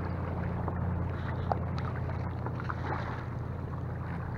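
Steady wind rumble on the microphone over choppy sea water lapping and splashing against an inflatable kayak, with small scattered splashes.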